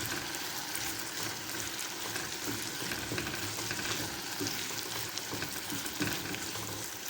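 Diced potatoes and chopped onion sizzling steadily in hot oil in a frying pan, with a few light knocks of a utensil in the pan.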